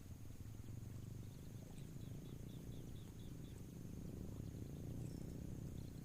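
Insects droning steadily at a high pitch, with a quick run of about eight even chirps about two seconds in, over a low steady rumble.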